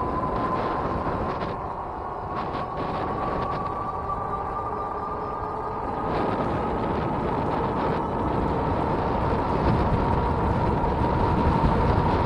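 Electric bike's 750-watt hub motor whining under load on a hill climb: one steady high whine that creeps slowly up in pitch. Under it runs a rush of wind on the microphone and tyre noise on asphalt.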